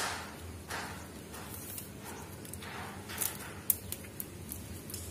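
Flat plastic basket wire rustling and scraping in short swishes as strands are pulled through the weave, with a sharp click a little past halfway and a couple of smaller ticks after it, over a faint steady low hum.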